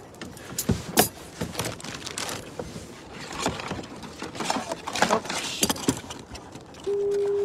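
Close rustling, clicks and knocks of fishing gear and clothing being handled on a kayak, then a steady single-pitched electronic beep starting just before the end.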